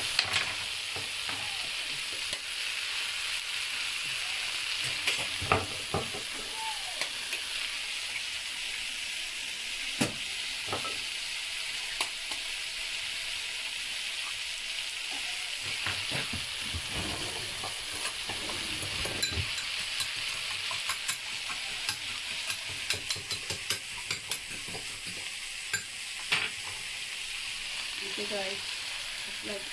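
Potatoes and onion sizzling steadily in an oiled frying pan, with scattered sharp clicks of a fork against a ceramic bowl as eggs are beaten; the taps come in quick runs in the second half.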